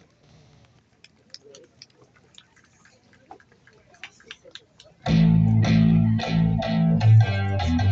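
A quiet gap with faint scattered clicks, then a band song with electric guitar and bass starts abruptly about five seconds in.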